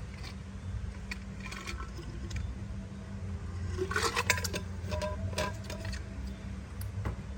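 A drinking cup handled while someone drinks water, with a few light clinks and knocks and short ringing tones about four to five and a half seconds in, over a steady low hum.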